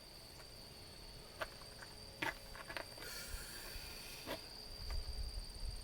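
Quiet outdoor background: a steady high-pitched whine, a few short soft clicks in the middle, and a low rumble that builds near the end.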